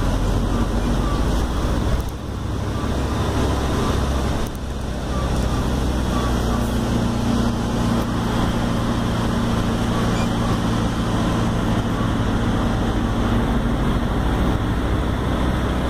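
Mercedes-Benz OF-1721L city bus's diesel engine running under way, heard inside the bus over road noise. The engine note drops briefly about two seconds in and again about four and a half seconds in, then pulls steadily.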